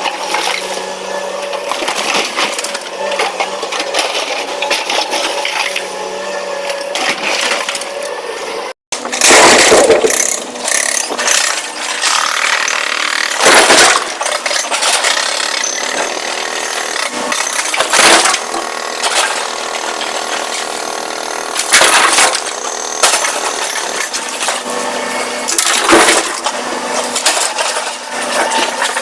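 Rock and stone crashing into the steel body of a tipper truck as a SANY SY225 excavator dumps bucket loads, with a loud surge of crashing and rattling about every four seconds over the steady hum of the engines.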